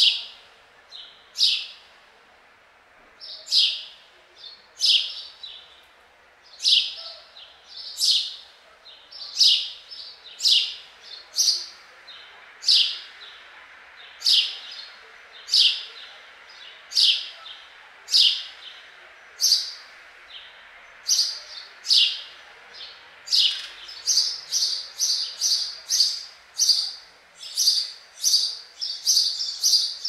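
House sparrow chirping: short, bright cheeps about once a second, coming faster, two or three a second, in the last part.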